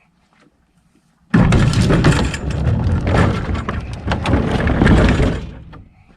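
A loud clattering crash of hard objects with many sharp knocks, starting suddenly about a second in, running about four seconds and dying away near the end.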